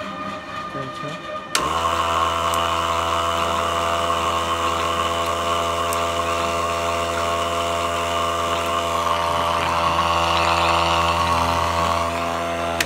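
Electric pump of a 12-volt battery knapsack sprayer switching on about a second and a half in and running with a steady hum, then cutting off abruptly at the end. The pump now runs after a burst capacitor was replaced.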